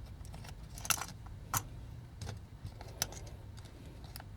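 A handful of sharp, light clicks and clinks at irregular intervals, from small toy parts and tools being handled during disassembly of a vintage Transformers figure.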